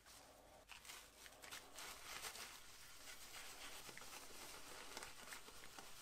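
Faint rustling and scuffing of a cloth rubbing metal polish onto an etched brass plate, with small crackles of the newspaper underneath.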